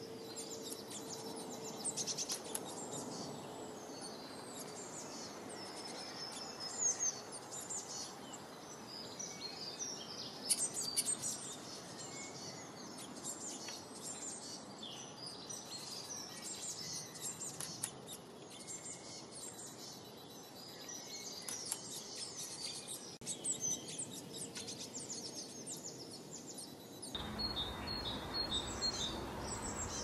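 Small songbirds chirping and singing, many short high calls overlapping over a soft steady hiss. Near the end the sound changes abruptly to a low hum with a few short high calls.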